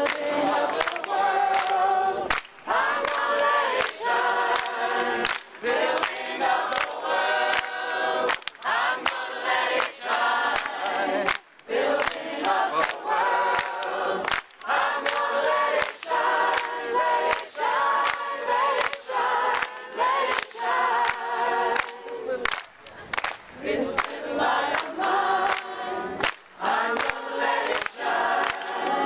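A group of people singing together, a solidarity singalong, with sharp regular beats about twice a second through the song.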